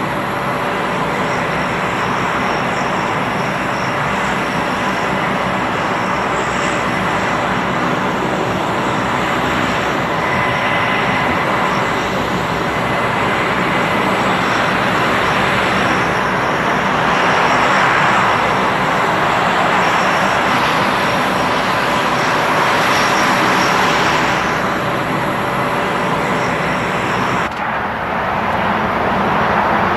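A-10 Thunderbolt II's turbofan engines running as the jet taxis: a loud, steady jet rush with a whine, swelling a little louder for a few seconds around the middle. The sound changes abruptly to a duller one near the end.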